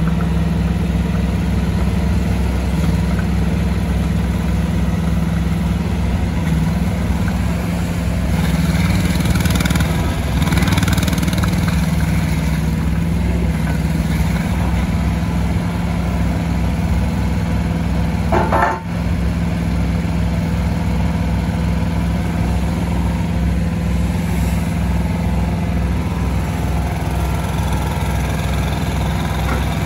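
Yanmar SV08 micro excavator's small diesel engine running steadily while the machine is worked, with a brief higher-pitched whine about two-thirds of the way through.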